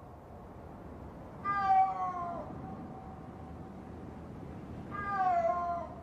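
Snow leopard calling twice: two drawn-out yowls, the first about a second and a half in and the second near the end, each sliding down in pitch, with a faint echo lingering after them. A mating-season call, the only time of year adult snow leopards call to each other.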